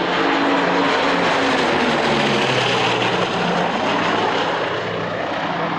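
Bristol Blenheim's two Bristol Mercury radial engines running loud at display power in a close low pass, with a heavy propeller rush; the engine note drops in pitch about two seconds in as the aircraft passes overhead.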